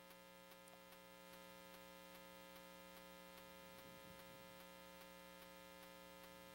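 Near silence: a faint, steady electrical hum with many evenly held overtones.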